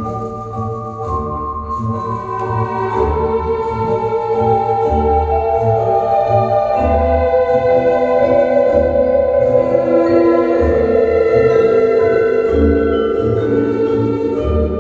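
Music played from a vinyl record through large horn loudspeakers and heard in the listening room: sustained, layered chords that slowly grow louder over a steady low beat about once a second.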